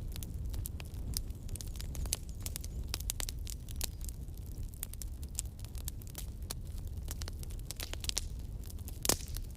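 Campfire crackling, with dense irregular pops and snaps over a low steady rumble of burning wood; one louder pop comes about nine seconds in.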